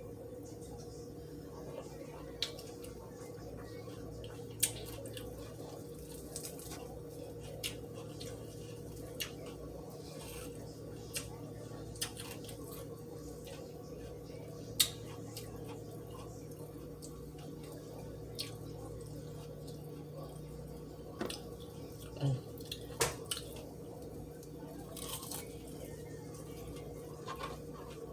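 Eating sounds: occasional soft clicks and smacks of chewing and a utensil on a plate, with a small cluster near the end, over a steady low background hum.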